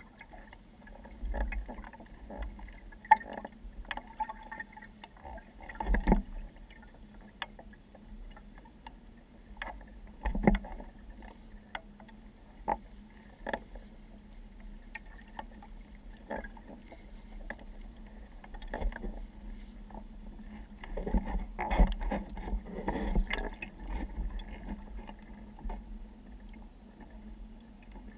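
Water lapping and slapping against a kayak hull, with irregular knocks and a busier cluster of splashes near the end, over a faint steady low hum.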